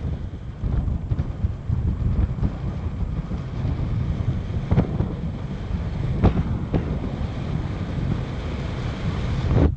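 Wind buffeting the microphone of a moving car over a low road rumble, with a few short thumps about five and six seconds in.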